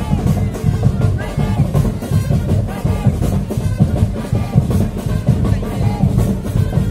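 Carnival parade music with dense, steady drumming, and pitched parts rising and falling over it.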